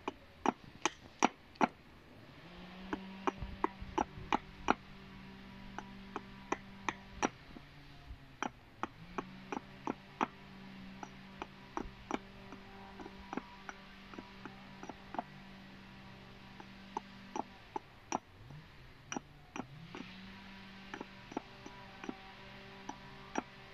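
Small axe chopping down a hazel stick on a log chopping block: light, sharp chops, about two a second in irregular runs, as the coarse wood is chipped away. A steady low drone hums in the background.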